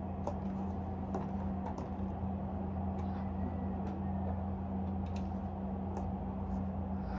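Silver high-heeled shoes clicking on a hard floor: faint, sharp taps at uneven spacing, about one a second, over a steady low hum.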